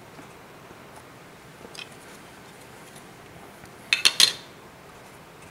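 A brief clatter of hard clicks about four seconds in as the Raspberry Pi, with its DAC board on top, is set down on a countertop, with a faint click a couple of seconds earlier.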